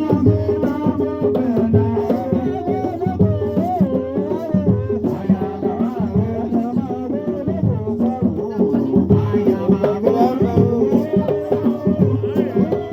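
Music with a shaker rattle and drum percussion under a melodic line, playing steadily.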